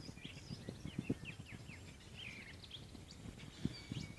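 Faint short bird chirps and quick falling calls, several a second, over a bed of low irregular thumps.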